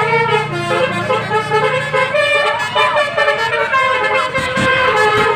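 Bus 'telolet basuri' musical horn: several horn notes sound together and step from pitch to pitch, playing a tune.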